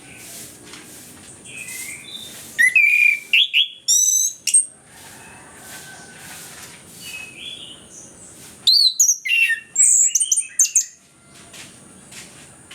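Orange-headed thrush singing in two loud bursts of quick, varied whistled phrases, one about three seconds in and one about nine seconds in.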